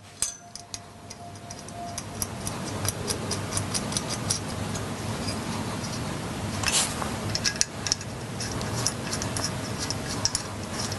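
Background music fading in, with a light ticking beat.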